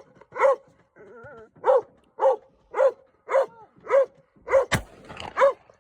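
A dog barks over and over, about two barks a second, with a short whine about a second in. Near the end comes a single shot from a .500 Linebaugh revolver firing a full-power 450-grain cast-bullet load, with a sharp blast.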